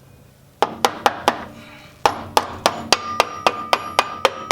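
Hammer tapping on a metal transfer-case part to seat it, each blow ringing: four quick taps, a short pause, then a steady run of about four taps a second.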